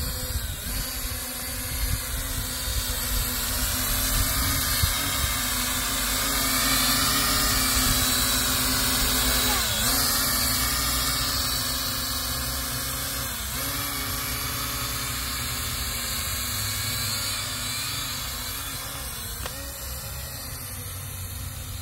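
Small quadcopter drone's propellers whining in flight, the pitch wavering up and down as it manoeuvres. It grows louder toward the middle and then eases off a little.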